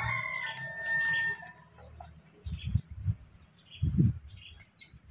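The end of a rooster's crow, a pitched call that stops about a second and a half in, with small birds chirping. A few dull low thumps come through the middle, the loudest about four seconds in.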